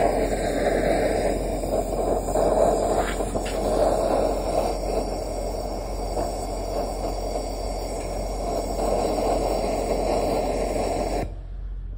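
Hand-held gas torch burning with a steady roar, its flame aimed into a home-made used-oil burner pot to light the oil; the sound cuts off sharply near the end.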